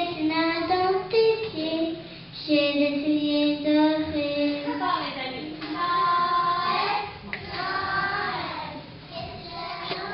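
Group of young children singing a Christmas song together, with long held notes and stepwise changes in pitch.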